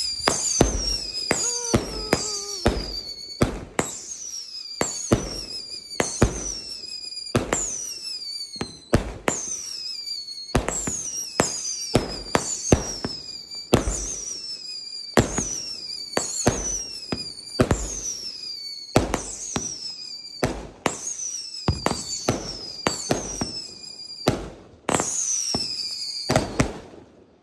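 Consumer fireworks cake firing a long barrage of whistling shots: sharp bangs every half second to a second, with a falling whistle about once a second. The barrage stops suddenly near the end.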